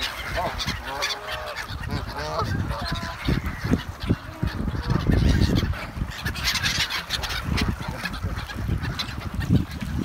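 A flock of black-headed gulls calling, many harsh overlapping cries at once. About three to six seconds in, a low rumble on the microphone covers the calls.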